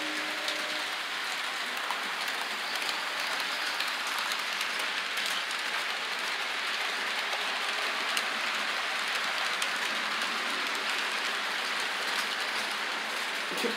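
Model train running on the layout track: a steady rushing whir of wheels and motor on the rails, with faint scattered clicks.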